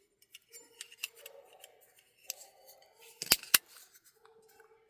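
Small vintage ladies' personal ashtray being handled: light scattered metallic clicks and scrapes, with two sharp clicks close together about three and a half seconds in.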